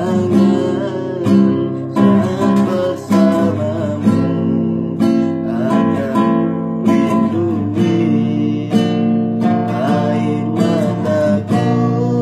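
Classical acoustic guitar strummed in steady chords, with a young man's voice singing along.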